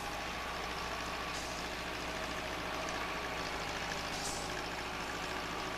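Heavy diesel engines of an asphalt paver and a haul truck running steadily while the truck unloads mix into the paver's hopper, a continuous low engine drone.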